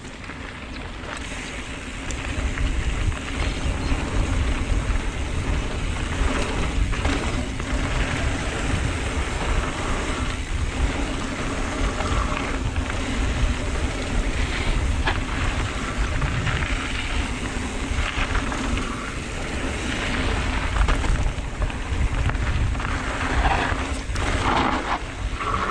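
Mountain bike being ridden down a dirt trail: wind rushing over the action camera's microphone, with tyres rumbling and rattling over the ground. It grows louder about two seconds in as the bike picks up speed.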